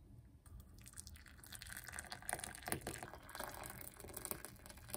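Faint running water, with a few small clicks.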